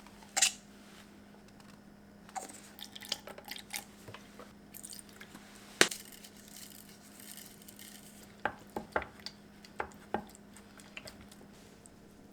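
Scattered short clicks and light knocks over a steady low hum, with sharp clicks about half a second and about six seconds in and a run of knocks in the second half.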